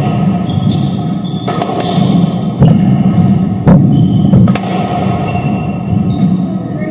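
Squash rally: the ball cracks off rackets and the court walls in a quick, uneven string of sharp knocks, while court shoes squeak briefly and often on the hardwood floor.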